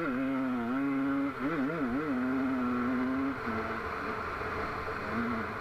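Off-road vehicle's engine running under changing throttle. Its pitch wavers up and down several times, holds steady, then drops to a lower, quieter note about three and a half seconds in.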